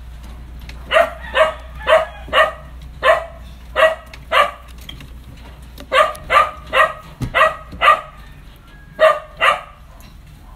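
A small dog barking: about fourteen short, sharp, high-pitched barks in several quick runs.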